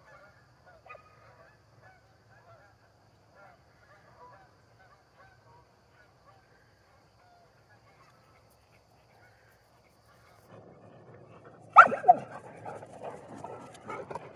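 A dog working close to the microphone: one loud, sudden vocalisation falling in pitch, about twelve seconds in, then close panting and scuffling. Before that, only faint scattered calls in the distance.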